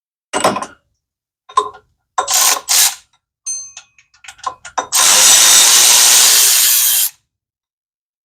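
Mechanic's tools working on an engine: a few sharp metal knocks, a quick run of ratchet clicks, then a power tool running steadily for about two seconds, the loudest sound.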